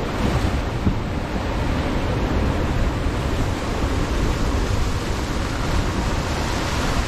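Strong wind buffeting the microphone over the rush of breaking waves and foaming water along a sailboat's hull as it drives hard in about 30 knots of apparent wind. It is a steady, loud roar of wind and water.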